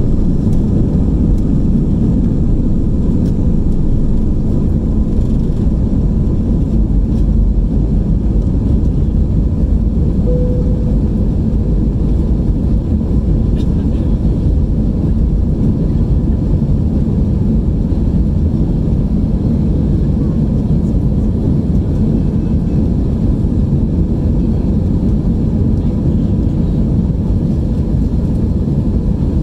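Airbus A320's engines at takeoff thrust, heard from a cabin window seat over the wing: a loud, steady, deep rumble with a faint steady whine, through the end of the takeoff roll and the initial climb.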